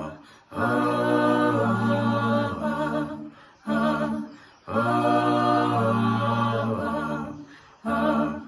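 An a cappella vocal group singing wordless 'ah' in held, sustained harmony, with no instruments. It comes as several long phrases, each broken off by a short breath gap.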